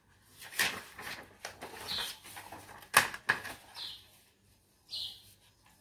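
Sheets of paper being handled and shifted on a desk, with rustles and a sharp knock about three seconds in. A small bird gives three short high chirps in the background.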